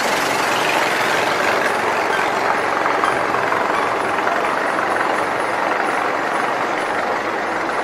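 Wooden river tour boat's engine running, loud and steady, while the boat is under way.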